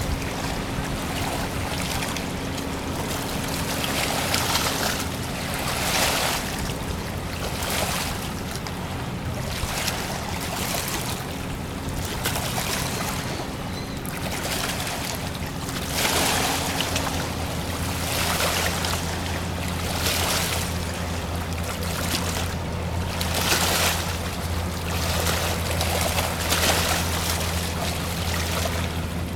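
Water rushing and splashing around the steamship Trillium, a sidewheel paddle steamer, in swells every couple of seconds over a steady low hum of the ship's machinery. The hum shifts lower about seventeen seconds in.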